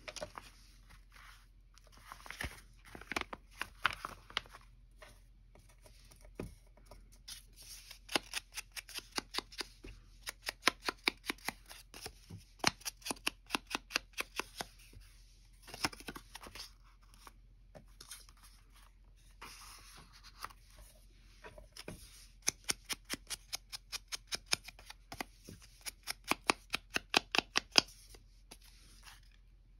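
Scissors snipping paper: quick runs of sharp snips, about three or four a second, with short pauses between runs.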